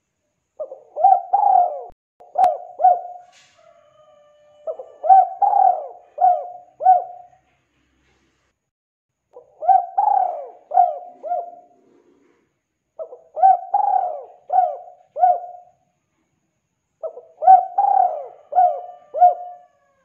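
Spotted dove cooing: five song phrases, each of several rolling coos, repeating about every four seconds with pauses between. A single sharp click sounds about two and a half seconds in.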